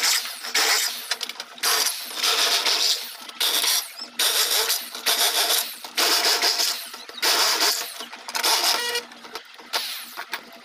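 Electric drill boring holes through aluminium window profiles, running in short whining, grinding bursts that stop and start roughly once a second.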